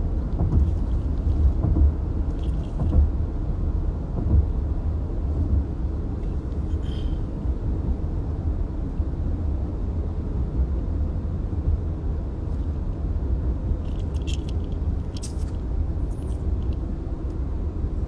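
Steady low road and engine rumble heard inside a moving car's cabin, with a few faint clicks near the end.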